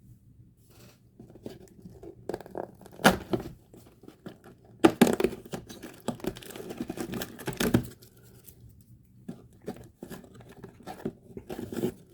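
Cardboard advent calendar door being torn open along its perforations, with paper or cardboard scraping and crinkling in irregular bursts; the loudest tearing comes about three seconds in and again from about five to eight seconds in.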